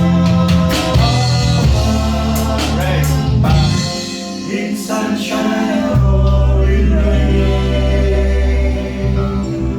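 A small band playing a song live: bass guitar, electric guitar, keyboards and drum kit, with voices singing. The bass drops out for about two seconds near the middle, then comes back in.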